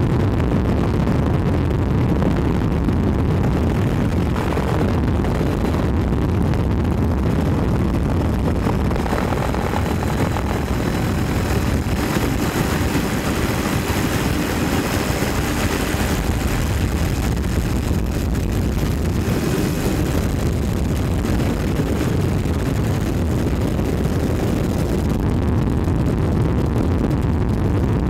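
Steady engine and airflow noise of the aircraft the aerial footage is shot from, a dense low rumble with faint high tones through the middle stretch.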